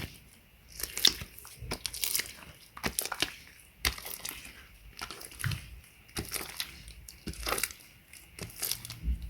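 Glitter slime made with borax being squeezed and worked, giving irregular sticky crackles and clicks.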